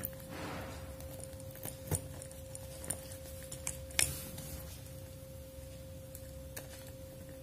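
Faint clicks and light knocks of a wire end being fitted to a 2-pin socket's screw terminal, the sharpest click about four seconds in, over a steady faint hum.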